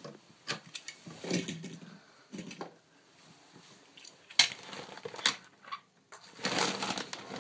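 Scattered clicks and light clatter of small hard objects being handled and set down, with a brief rustling stretch near the end.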